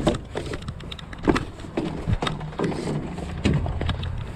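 Footsteps and knocks on playground equipment: shoes landing irregularly on perforated coated-metal decks, about one or two a second, over a low rumble.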